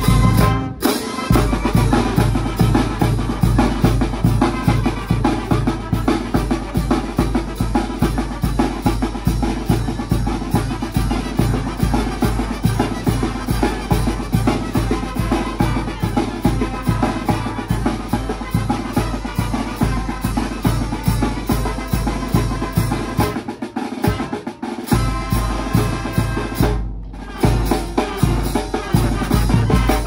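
Oaxacan brass band playing a lively tune: bass drum and cymbals keep a steady, driving beat under sousaphones, trumpets, trombones and clarinets. The bass drops out briefly about four-fifths of the way through.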